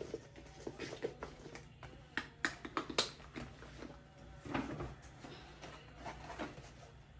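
Hands handling a quilted leather shoulder bag and its strap: scattered light clicks and knocks with some rustling, over a faint steady low hum.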